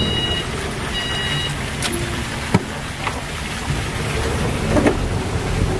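A vehicle's reversing beeper beeps twice, about a second apart, over steady vehicle running noise and low rumble. Two sharp clicks come a couple of seconds in.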